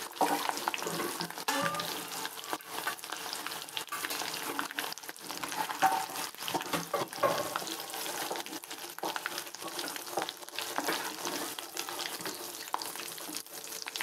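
Potatoes sizzling as they fry in hot oil in a kadai. A perforated steel skimmer scrapes and clinks against the pan in short strikes as it turns the potatoes and lifts them out.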